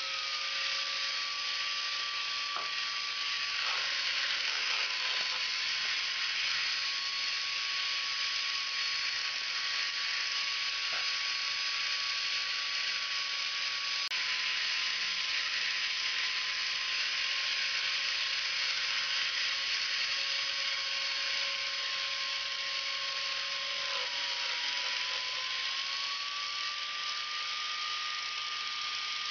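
Dremel rotary tool in a drill-press stand spinning a small diamond grinding bit into wet glass to enlarge a hole, a steady high whine over a hiss; the pitch dips briefly about four-fifths of the way through and recovers. The tool is noisy, which its owner puts down to it needing service.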